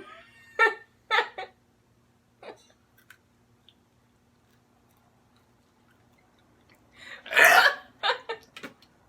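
A man gagging after biting into a cat treat: a few short retching heaves early on, then one longer, louder retch about seven seconds in, followed by a couple more short heaves.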